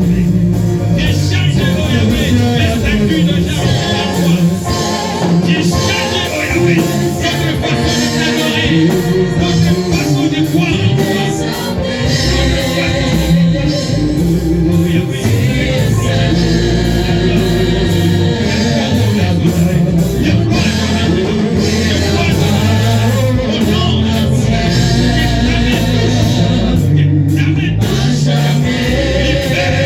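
Gospel worship song: singing over band accompaniment with a steady beat and sustained deep bass notes.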